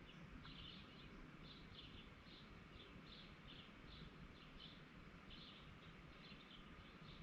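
A bird chirping faintly and repeatedly, short high chirps at about two to three a second, over a low steady background hum.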